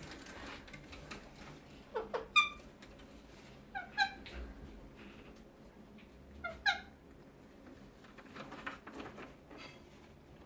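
Pet green parrot giving short, high chirping calls in three brief clusters, about two, four and six and a half seconds in, with faint clicks between them.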